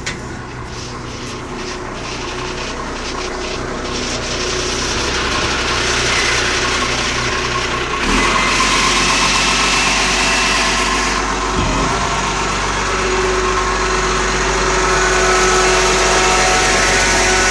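Iveco Acco rear-loader garbage truck's diesel engine and hydraulics running, a steady mechanical hum with a held whine. It grows steadily louder and steps up again about eight seconds in.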